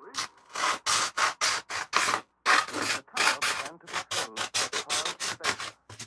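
Fine P800 sandpaper rubbed by hand over a small metal part clamped in a vise, in quick, even back-and-forth strokes about four a second, with a short pause near the middle.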